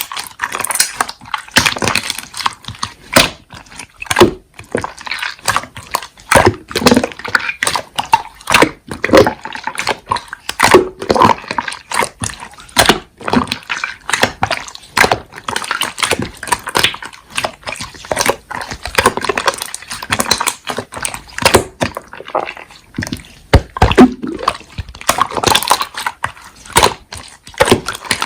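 Slime being squeezed and pressed by hand, with a dense, irregular run of wet squishing, clicking and popping sounds.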